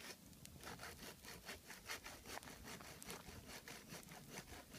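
Wood campfire crackling faintly, with many small, irregular pops and ticks.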